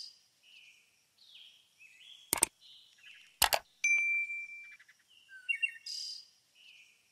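Looping end-card sound effects for a subscribe prompt. Sharp clicks are followed by a bright bell-like ding, with short bird-like chirps in between, and the sequence repeats about every five seconds.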